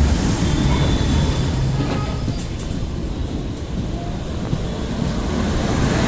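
Express passenger train running at speed on the rails, heard from on board: a steady rumble of wheels on track with rushing air.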